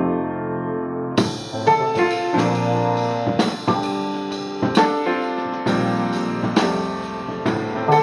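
Instrumental rock music from a song demo: piano chords ringing alone, then a drum kit with cymbals comes in about a second in and keeps a steady beat under the piano.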